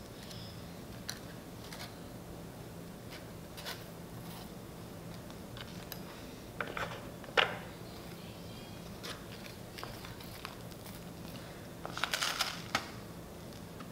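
Scattered small clicks and rustles of hands assembling a s'more, graham crackers and a roasting stick being handled, with a louder click about halfway and a short flurry near the end, over a steady low room hum.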